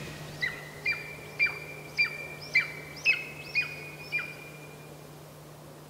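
Juvenile golden eagle calling: a series of about eight thin, high yelps, roughly two a second, that fade away after about four seconds.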